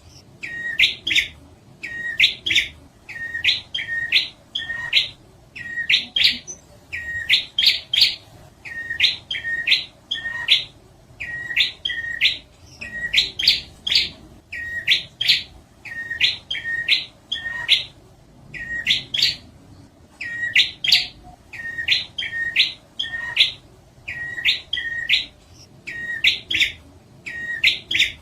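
Prinia (prenjak) song from a lure-call recording: short runs of two to four quick, rising chirps, repeated about once a second without a break.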